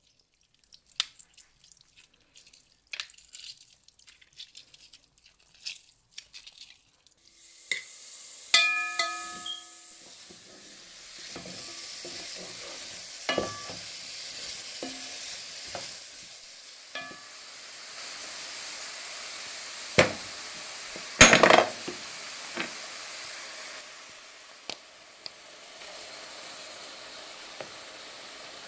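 Light scattered taps and clicks, then about seven seconds in, a steady sizzle of vegetables frying in a pan starts and runs on, with a utensil stirring and knocking against the pan; one knock rings briefly with a metallic tone, and the loudest knocks come about two-thirds of the way through.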